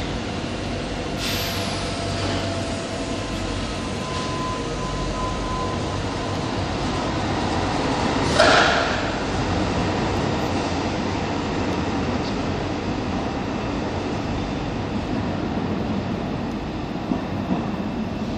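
Tyne and Wear Metro Class 994 Metrocar pulling out of an underground station and running off into the tunnel, a steady rumble throughout. There is a brief falling hiss about a second in and a louder, short burst of noise about eight seconds in.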